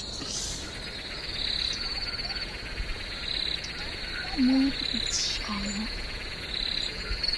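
Insects trilling outdoors: a high, pulsed chirring that comes and goes every second or two. Two short low-pitched calls sound about a second apart near the middle.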